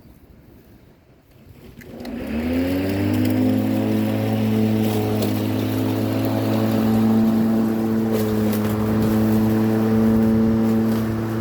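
Lawn mower's small petrol engine starting about two seconds in, rising quickly in pitch and settling into a steady run.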